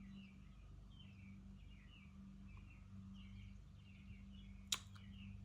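Near silence: room tone with a steady low hum, faint high chirps, and a single sharp click near the end.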